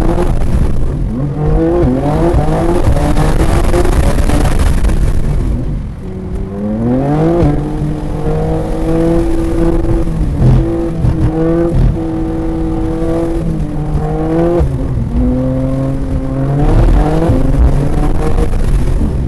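2023 BMW M2 (G87) twin-turbo inline-six engine under hard acceleration on track. Its pitch climbs in several pulls, holds level for a few seconds in the middle and falls back twice as the car slows.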